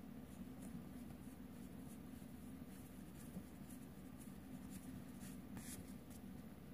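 Faint scraping and light ticking of Magic: The Gathering trading cards being slid one behind another in the hand, over a low steady room hum.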